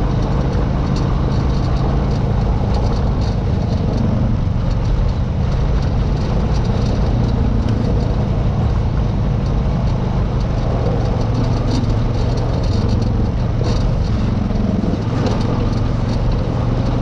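Off-road vehicle engine running at a steady, even pitch while being ridden, with frequent light clicks and rattles over the top.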